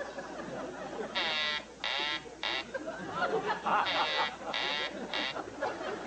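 Electronic telephone ringing: warbling rings in groups of three, twice, about a second in and about four seconds in.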